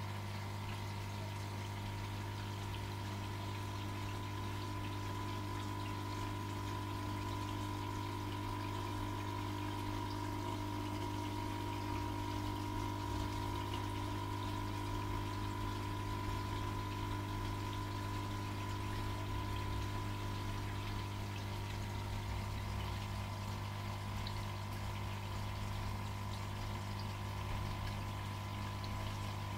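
Aquarium filter pump running with a steady hum and a continuous wash of moving water.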